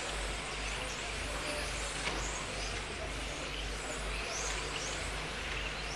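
Several 1:10 electric RC touring cars racing, their motors giving high whines that rise and fall as they accelerate and slow through the corners, over a steady low hum.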